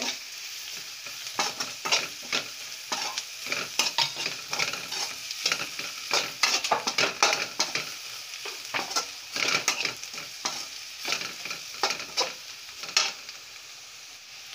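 Vegetables stir-frying in oil in a kadai: steady sizzling with repeated scrapes and knocks of a perforated metal ladle against the pan as spice powder is stirred in. The stirring stops near the end, leaving only the sizzle.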